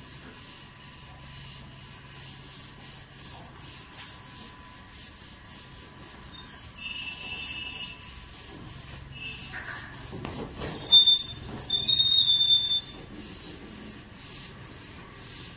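Cow licking her newborn calf: a steady rasping rub in quick repeated strokes. Short, loud, high chirps cut across it, once about halfway through and twice more shortly after.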